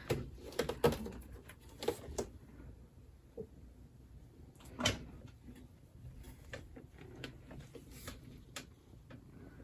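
Scattered light clicks and knocks of small objects being handled in a small room, busiest in the first two seconds, with one sharper knock about five seconds in.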